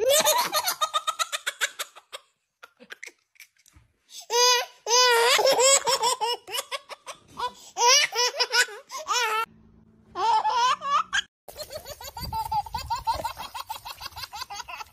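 A baby laughs in repeated bursts of rapid giggles with short quiet pauses between them. About three-quarters of the way through the sound changes to a steady hiss with a young child's voice over it.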